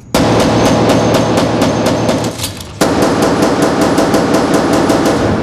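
Rapid pistol fire, many shots a second, in two long strings with a short break about two and a half seconds in.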